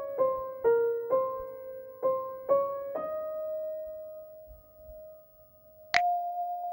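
Background music: a soft piano melody of single struck notes, about two a second. The last note is held and slowly fades. A brief sharp click and a new note come near the end.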